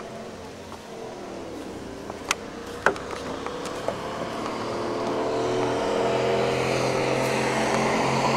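A motor vehicle's engine running nearby, a steady hum that grows louder over the second half. A few sharp clicks sound two to three seconds in.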